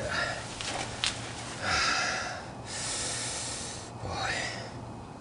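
Two long, hissing breaths from a person straining, one after the other, the second higher and airier.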